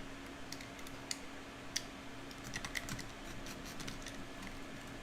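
Faint, irregular small clicks and scratches of an X-Acto knife cutting around the edge of a fabric strap, over a steady low hum.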